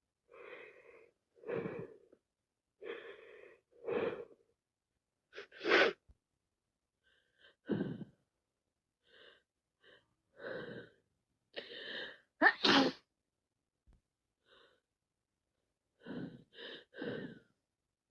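A person with a wet head cold sneezing over and over, about ten sneezes, some with a quick gasping in-breath before them. The loudest is a double sneeze about two-thirds of the way in, and it ends with three sneezes in quick succession.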